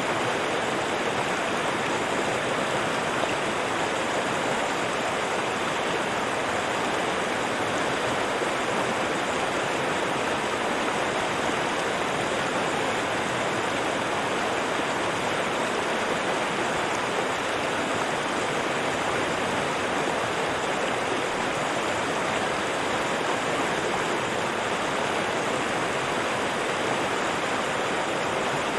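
River water rushing and burbling over rocks, a steady even rush with no pauses or changes.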